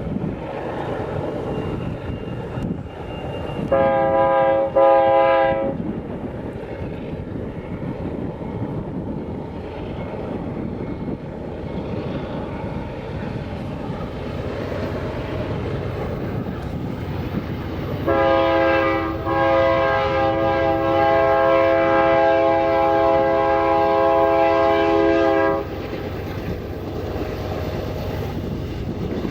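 The K3LA five-chime air horn on a GE AC4400CW diesel locomotive sounds two short blasts, then one long blast of about seven seconds. The passing train rumbles underneath throughout.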